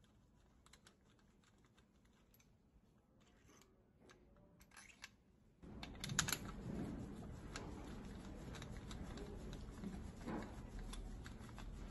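Faint clicks and small rattles from gloved hands handling a compression tester's hose and fitting on a diesel engine's cylinder head. About halfway through, a low background rumble comes in and the clicking gets louder and more frequent.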